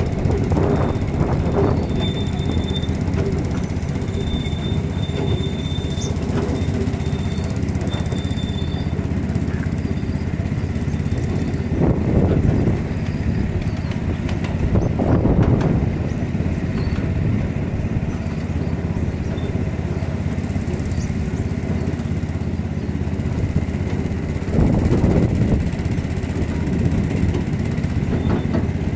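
Ride-on miniature railway train running along its track: a steady rumble from the locomotive and the cars' wheels on the rails, swelling louder a few times along the way.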